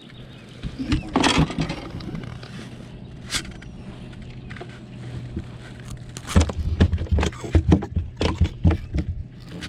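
Knocks, clicks and scrapes in a fishing boat over a steady low hum, with a flurry of heavier thumps and knocks starting about six seconds in.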